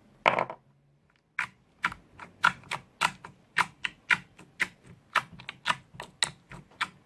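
Crystal slime being squeezed and pressed in the hands for ASMR, making sharp clicks and pops about twice a second after a brief pause.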